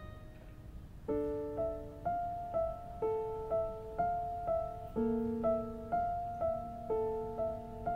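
Soft piano background music: after a short lull, a slow repeating pattern of notes, about two a second, begins about a second in.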